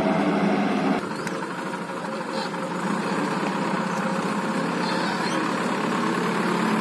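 Diesel engines of a tractor and a backhoe loader running steadily at idle; the sound changes abruptly about a second in.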